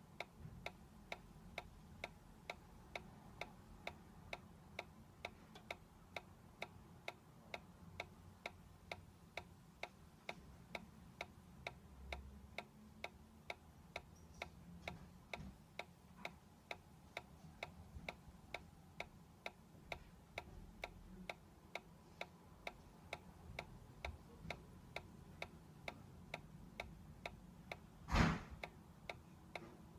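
Solar-powered dancing toy's magnetic swing mechanism ticking steadily, nearly two soft clicks a second as it rocks back and forth. One louder knock near the end.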